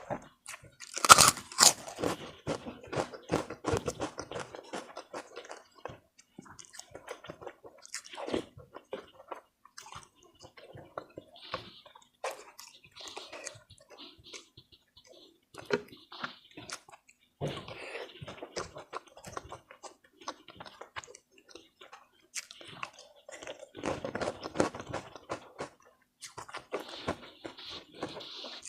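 Close-up eating sounds: chewing with wet, crunchy bites in irregular bursts, the loudest about a second in. The food is ketupat with opor ayam and spicy fried potatoes.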